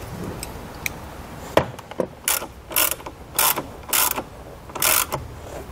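Hand ratchet with a 10 mm socket clicking in five short bursts about half a second apart, as it is worked back and forth on the nut of a car battery's negative terminal.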